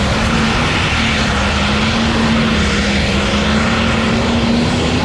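Diesel super stock pulling tractor's engine running flat out under full load as it drags the weight sled down the track, a loud, steady drone whose pitch holds nearly constant.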